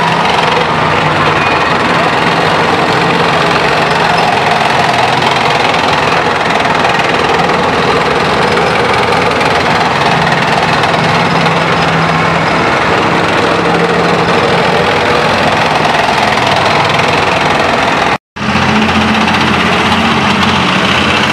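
Ulan infantry fighting vehicles passing close by in column, their diesel engines running steadily under load and their tracks rolling on the road. The sound cuts out for an instant near the end, then another tracked armoured vehicle carries on.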